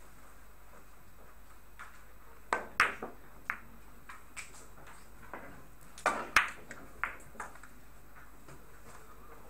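A cue shot on an Italian billiards table: the cue strikes the ball, and then comes a run of sharp clicks as the billiard balls hit one another. There are about nine clicks in two clusters, the loudest a little before 3 s and again a little after 6 s.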